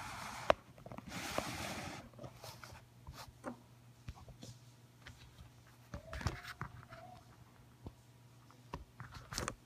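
Handling noise as the camera is set down and adjusted: a sharp knock about half a second in, a rustle through the first two seconds, then scattered clicks and a brief squeak about six seconds in, over a faint steady low hum.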